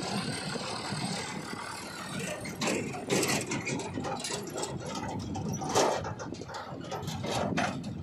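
Sonalika DI-750 III RX tractor's diesel engine running as it pulls a steel tipping trailer across sandy ground, with a few sharp knocks and rattles along the way.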